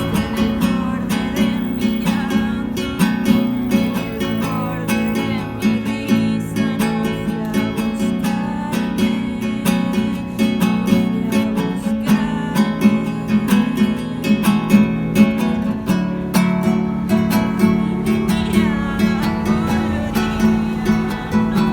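Song music led by a strummed and picked acoustic guitar, playing steadily.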